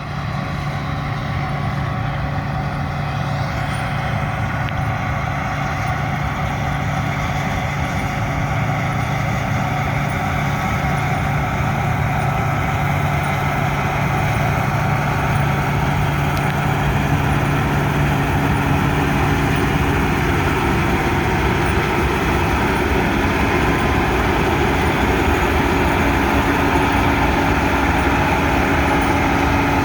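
Heavy farm machinery's engine running steadily under load, its hum shifting to a higher tone about two-thirds of the way in.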